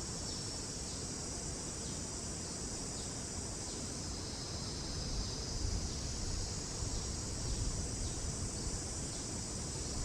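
Steady high-pitched chorus of insects, pulsing faintly about once a second, over an uneven low rumble that grows louder in the second half.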